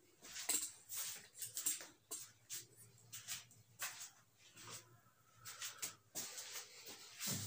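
Faint, irregular scuffs, rustles and light knocks of a person moving about at a whiteboard, with a brief thin squeak about two-thirds of the way in.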